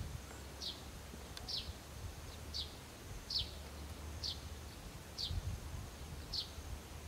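A bird repeating a short, high note that slides downward, about eight times at an even pace, over a low steady rumble.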